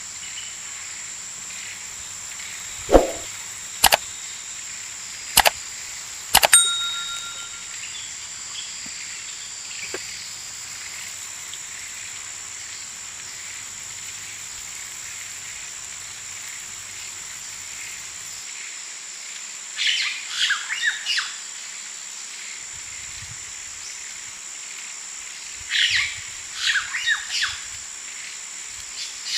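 Outdoor garden ambience with a steady high-pitched whine, a few sharp clicks in the first several seconds, and two short flurries of bird chirps in the second half.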